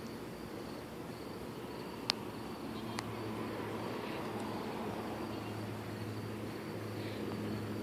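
Crickets chirping steadily in short evenly repeated pulses over a low steady hum. A sharp click about two seconds in and a fainter one a second later.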